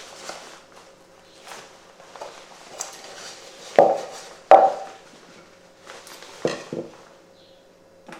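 Plastic Paterson developing tank and its parts being handled and knocked together, with a few scattered knocks and two sharp clacks about four seconds in.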